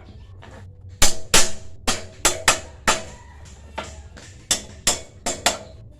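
Steel bar clanking against metal: about a dozen sharp, irregular strikes starting about a second in, each with a brief metallic ring, as the bar is knocked into place for a tight fit.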